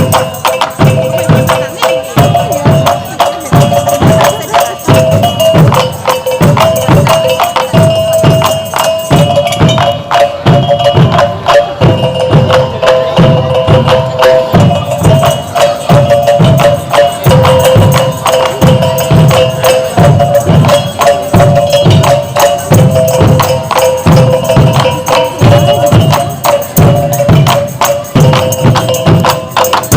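Music with dense, fast tambourine and drum strokes under a melody of held notes that step from pitch to pitch; it cuts off right at the end.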